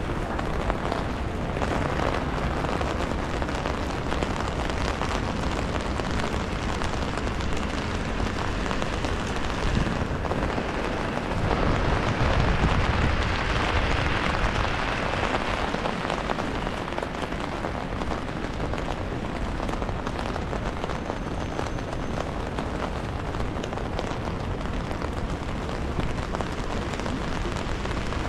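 Steady rain pattering on an umbrella held overhead, over the hiss of a wet city street. The noise swells louder for a few seconds in the middle.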